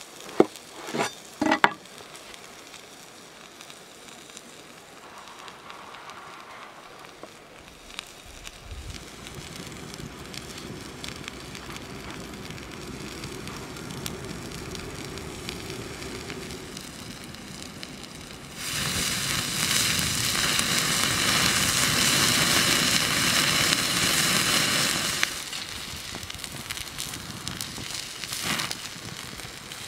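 A beef burger patty sizzling on a hot stone slab over a crackling wood fire. It opens with a few sharp crunchy clicks. The sizzle grows steadily, jumps to a loud, even frying hiss for about six seconds past the middle, then drops back to quieter sizzling and crackle.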